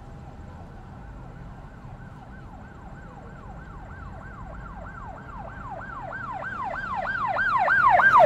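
A siren yelping, its pitch sweeping quickly up and down about three times a second and growing steadily louder, over a low steady rumble.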